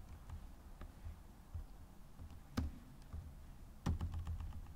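A few separate key presses on a computer keyboard, the loudest about four seconds in, followed by a few lighter taps.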